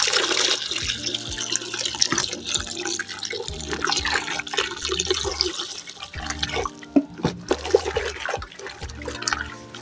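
Water being poured and splashing into a bowl of hot melted conditioner mixture. It starts suddenly, runs heavily for several seconds, then thins to scattered splashes and clinks.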